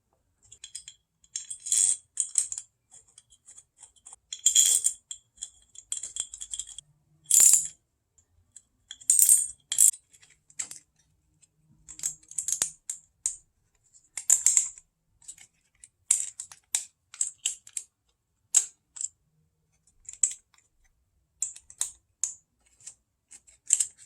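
Irregular sharp clicks and light plastic rattles of ignition coil packs being handled and pressed back into the engine's cylinder head.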